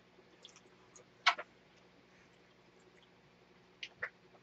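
A few scattered sharp clicks and taps of a spoon against a frying pan, the loudest about a second in.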